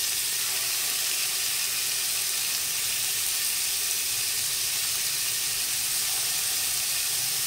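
Chunks of beef sizzling steadily as they sear in hot fat in a large aluminium pot.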